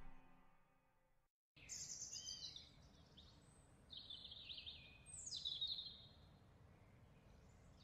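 Faint songbird song over a steady background hiss, coming in about a second and a half in after a brief silence: a run of chirps and quick falling whistled phrases.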